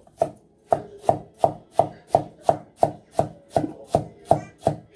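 Knife mincing an onion on a wooden cutting board: steady, evenly spaced chopping strokes, about three a second.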